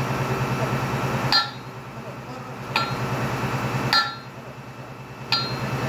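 Hydraulic machinery working in short on-off stretches: a steady hum under load for about a second and a half, then quieter, then on again, twice. Each start and stop comes with a sharp metallic clack, the sound of a control valve or lever being engaged and released.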